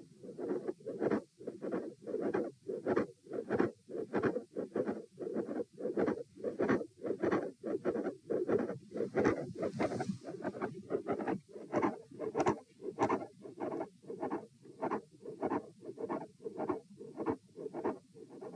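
Heartbeat heard through a stethoscope on the chest: a quick, steady run of paired lub-dub beats. The recordist identifies a mid-systolic click and a fixed split second heart sound in it, typical of an atrial septal defect. A few brief scratchy sounds come partway through.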